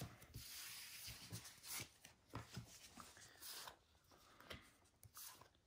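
Faint scattered rustles and soft taps of baseball cards being handled and slid across a wooden table.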